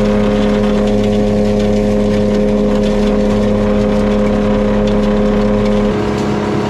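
Gold-ore mill plant running: a steady machine hum from its motors, mixed with crushed ore pouring off a conveyor belt into a chute. About six seconds in the strong steady hum stops and a slightly quieter machine noise carries on.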